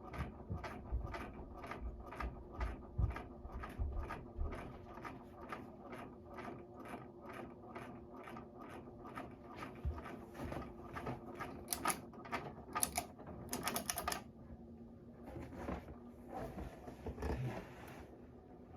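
Hampton Bay Littleton ceiling fan running with a steady motor hum and a regular clicking about two to three times a second. The clicking stops about fourteen seconds in, leaving the hum and a soft rush of air.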